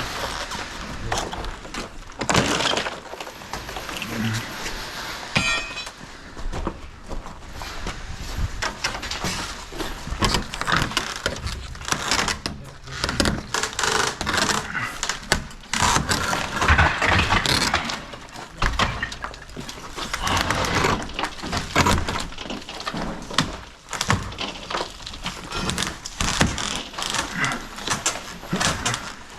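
Irregular clatter, knocks and scraping of hands-on building work, with many sharp impacts at uneven intervals.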